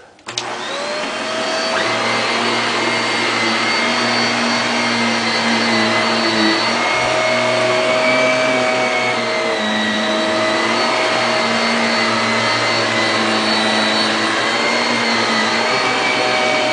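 Shark Rotator Professional Lift-Away upright vacuum cleaner switched on, its motor winding up to speed within about two seconds, then running steadily with a whine that dips slightly in pitch now and then.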